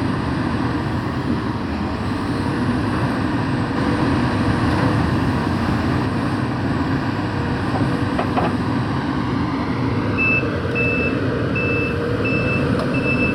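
Heavy construction machine's diesel engine running steadily; about ten seconds in, its reversing alarm starts, sounding a steady series of high beeps as the machine backs up.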